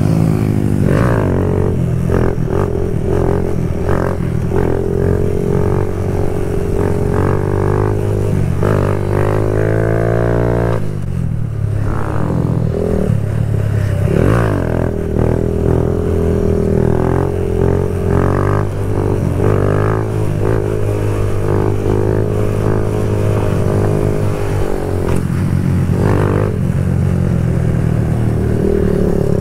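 Kawasaki Z125's small single-cylinder engine through an aftermarket full exhaust, ridden hard with repeated revs and gear changes, the pitch climbing and falling again and again, with a short drop in level about 24 seconds in.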